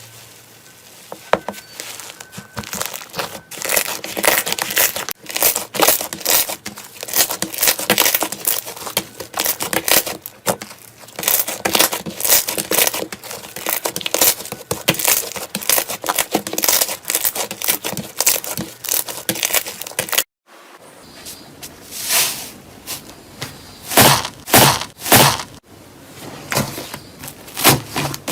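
Slime being squeezed and poked by hand, giving a dense run of wet crackling and popping clicks. It stops for a moment about 20 seconds in, then the clicking resumes.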